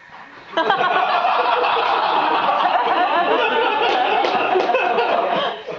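Audience laughing, breaking out suddenly about half a second in, holding loud for about five seconds, then dying away near the end.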